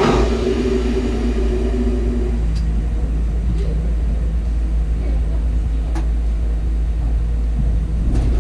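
Sagano Romantic Train's SK200 passenger car running along the track: a steady, loud low rumble that comes up suddenly at the start. Two steady tones ride over it for the first two seconds or so and fade, and a few single clicks come through.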